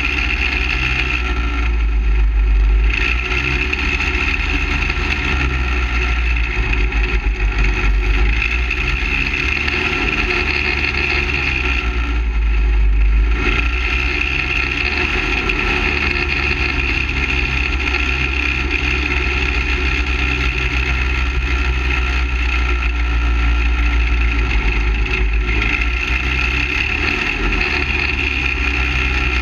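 Half-scale dirt late model racing kart's engine running steadily around a dirt oval, heard from a camera on the car's roof with heavy low rumble. Its note changes briefly about two seconds in and again around twelve to thirteen seconds in.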